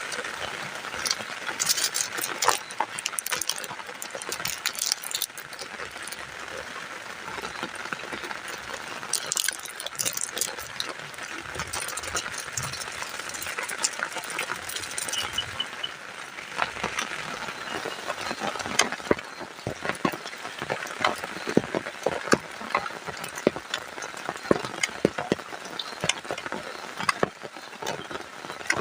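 Food cooking in a pan and being stirred, with frequent clicks and scrapes of a utensil against the pan, over a steady hiss of heavy rain.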